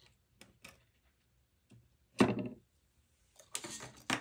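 Light handling clicks, then a single thunk about two seconds in as the thin metal rear IO shield of the Mac Mini is set down on the table. A short scuffle and a sharp click follow near the end.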